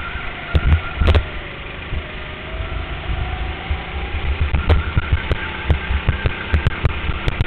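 Go-kart running at speed on an indoor track, heard from on board, with a steady low drone. Frequent sharp knocks and rattles from the kart and its camera mount: one loud one about a second in, then many more through the second half.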